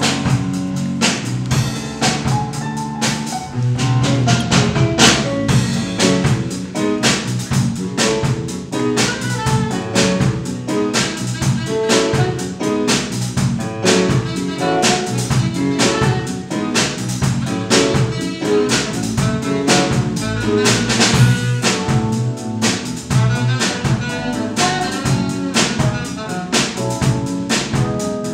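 Live jazz band playing: drum kit keeping a steady, busy beat under an electric bass line and electric keyboard.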